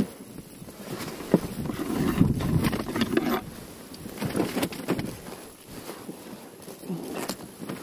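Handling noises: rustles and scattered short clicks as a small caught zander and tools are handled in an inflatable boat, with wind buffeting the microphone.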